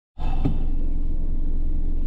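Vehicle engine running, heard from inside the cabin as a steady low rumble that cuts in abruptly, with a brief knock about half a second in.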